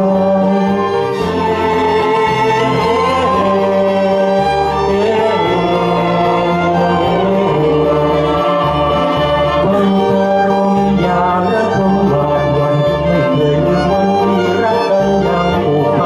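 A man and a woman singing a Thai duet through microphones over backing music with a pulsing bass line, with a violin playing along.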